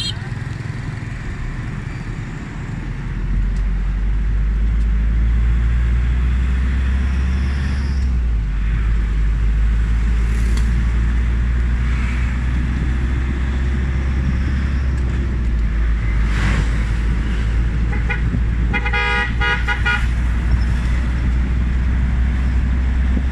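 Car engine and road rumble heard from inside the moving car's cabin, growing louder about three seconds in as the car gets up to speed. About nineteen seconds in, a vehicle horn toots once for about a second.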